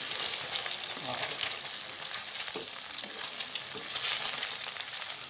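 Oil sizzling and crackling with many small pops in a non-stick frying pan where fried eggs cook with chopped garlic, bird's-eye chillies and spring onion. A wooden spatula scrapes and pushes the food across the pan.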